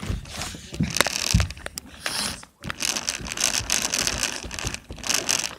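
Toy RC car driving, its plastic gears and wheels rattling and clicking, heard close up from a camera mounted on the car. It stops briefly about two and a half seconds in, then carries on.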